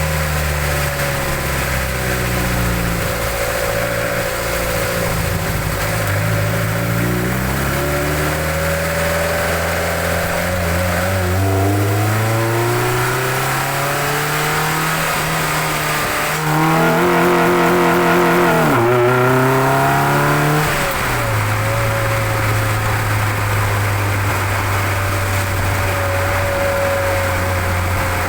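Mazda MX-5 NC1's 2.0-litre MZR four-cylinder engine with aftermarket cams and a cold air intake, heard from under the bonnet with loud intake noise. The engine note rises and falls repeatedly, is loudest for a few seconds in the middle with a fast-wavering pitch, then settles to a steady note.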